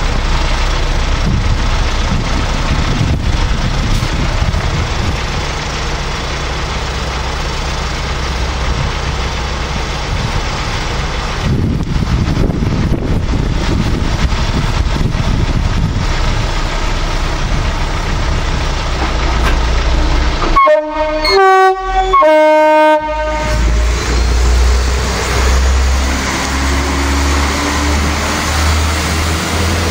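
Diesel engine of a rail multi-purpose vehicle (MPV) running steadily. About two-thirds of the way through, a train horn sounds loudly in three short blasts of differing pitch. After that the engine note grows heavier and rises slightly.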